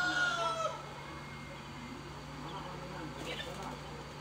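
A rooster crowing, its long held call ending less than a second in, followed by quieter background with a few faint high chirps about three seconds in.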